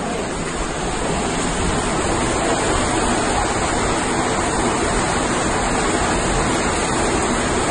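Water rushing and splashing steadily in a cave, a dense even roar of falling water, growing a little louder over the first couple of seconds.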